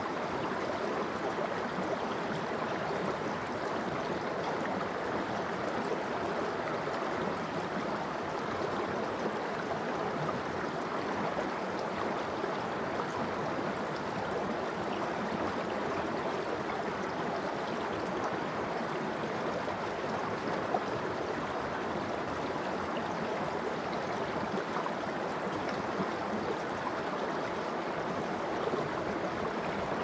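Shallow, clear stream flowing steadily over a bed of pebbles and stones, a continuous burbling rush of water.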